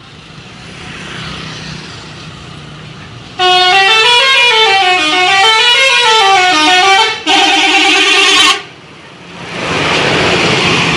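Bus 'telolet' multi-tone musical horn blaring a loud melody whose pitch swoops up and down in waves for about four seconds. After a brief break it plays a trilling chord for about a second and stops. Vehicle noise builds before it, and a loud rush of noise follows near the end.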